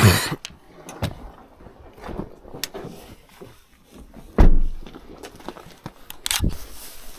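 Footsteps and brush crackling through the woods, with scattered twig snaps and clicks and a sudden heavy thump about four and a half seconds in, the loudest sound.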